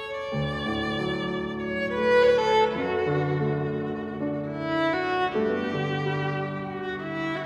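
Fiddle and grand piano playing together: the fiddle draws long bowed notes, and the piano's lower chords come in just after the start.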